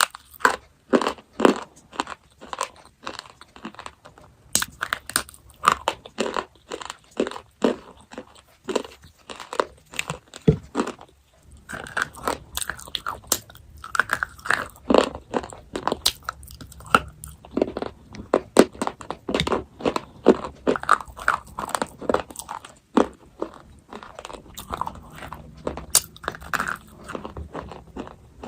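Close-up chewing and crunching of chocolate in the mouth: a steady run of crisp bites and crunches, about two a second.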